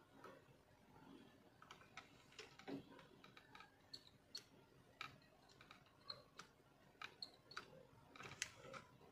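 Faint, irregular small clicks and ticks of metal tweezers and a soldering iron tip touching a mobile phone circuit board while a thin jumper wire is soldered in place.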